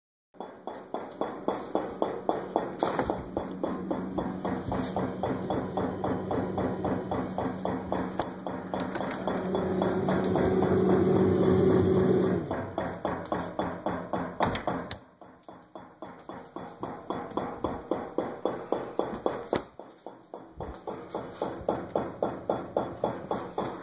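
Refrigerator making a strange regular ticking, a few ticks a second, over a steady hum. The hum swells about ten seconds in and stops shortly after; the ticking carries on, fainter for a while and then louder again.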